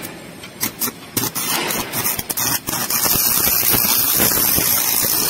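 Stick (arc) welding on a reinforcing bar: the electrode pops and sputters irregularly as the arc is struck, then about three seconds in settles into a steady, loud crackling hiss as the arc burns.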